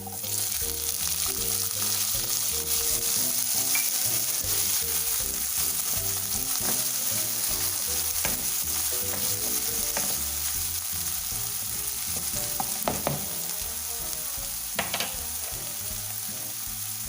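Chopped tomato frying in hot ghee with onion in a kadhai: a loud steady sizzle that flares up as the wet tomato hits the fat. A few sharp knocks and scrapes of a spatula come through the sizzle as it is stirred.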